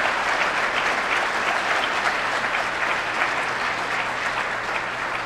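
Large audience applauding, a steady dense patter of many hands clapping that eases off slightly near the end.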